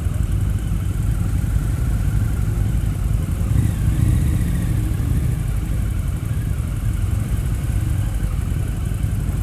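Harley-Davidson touring motorcycle's V-twin engine running steadily while cruising, heard from the bike itself with wind rush over it. The engine swells briefly about four seconds in.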